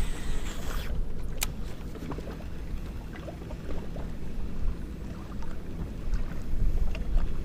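Small fishing boat moving across a lake: a steady low rumble with a brief hiss in the first second and a sharp click about a second and a half in.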